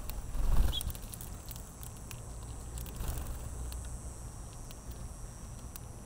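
Finches pecking seed at a feeder tray: scattered light clicks, with a brief high chirp just under a second in. A low thump about half a second in is the loudest sound.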